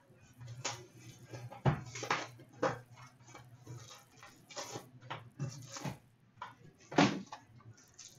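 Handling noise from a sealed hockey card box being unwrapped and opened and its packs set down on a glass countertop. Scattered rustles with sharp clicks and knocks, the loudest about seven seconds in.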